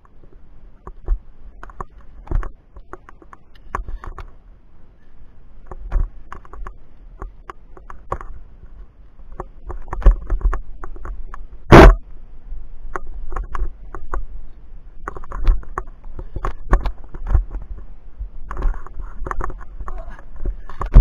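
Irregular clicks, knocks and scrapes of climbing a via ferrata: hands and gear against limestone, a steel cable and a chain, picked up by a body-mounted action camera along with low handling rumble. One loud sharp clack about midway.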